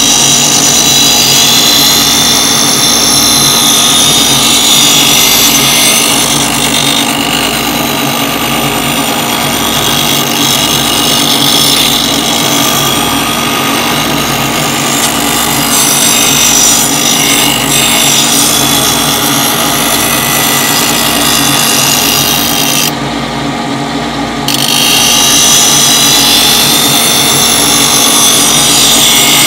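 The abrasive wheel of a MagnaMatic Mag8000 blade sharpener grinds a new 30-degree cutting edge onto a steel curved mulching mower blade, making a steady harsh grinding over the motor's hum. About six seconds before the end the grinding briefly drops away as the blade comes off the wheel, then it resumes.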